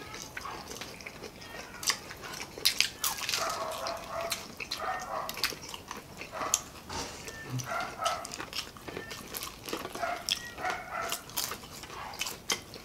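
Close-up eating sounds: crisp bites, crunches and wet mouth clicks from several people chewing fried street food such as chicharon bulaklak and battered eggs. From about three seconds in there are a few short high-pitched whines in the background.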